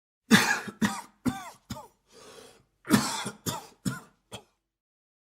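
A man coughing in two fits of four coughs each. He draws a breath in between the fits, and the first cough of each fit is the loudest.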